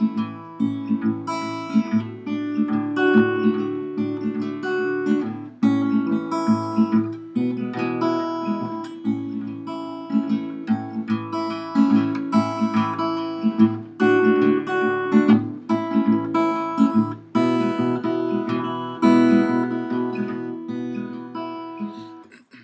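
Background music: acoustic guitar strumming chords in a steady rhythm, cutting off at the end.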